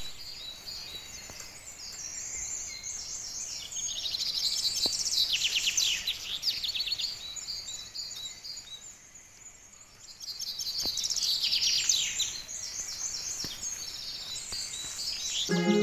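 Several small songbirds chirping and singing in quick, overlapping high calls, in two busy spells with a lull in between.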